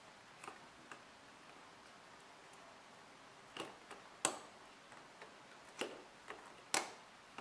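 Scattered light clicks and taps of fingers handling a Nokia Lumia 920's battery and plastic internal frame, about eight in all, the sharpest about four seconds in and near the end.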